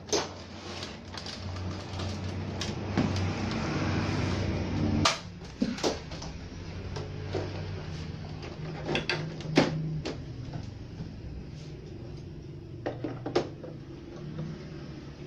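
Plastic clicks and knocks as the back cabinet of a Sony Trinitron CRT TV is handled on the bench, with a low hum that cuts off at a knock about five seconds in.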